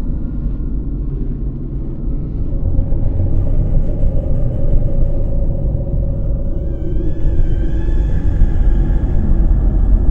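Deep, steady low rumble of a horror ambience drone, growing louder a couple of seconds in, with faint wavering higher tones rising through it over the second half.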